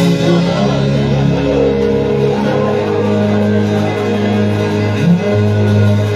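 Gospel worship band playing an instrumental passage with guitar and sustained keyboard chords over a steady bass.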